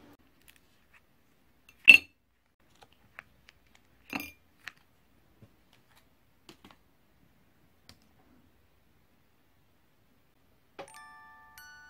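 Clacks of a ceramic plate and plastic-stick candy lollipops being set down and handled: one sharp clack about two seconds in, a softer one about two seconds later, then a few faint taps.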